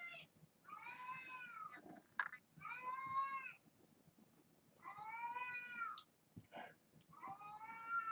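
A cat meowing repeatedly, about four meows in a row, each one rising and then falling in pitch.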